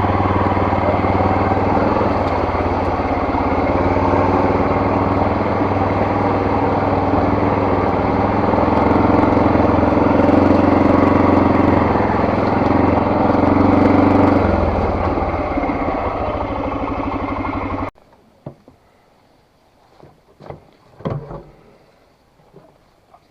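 Vehicle engine running hard under load, pushed harder for several seconds in the middle, then easing off. The engine sound cuts off suddenly about eighteen seconds in, leaving a few faint knocks.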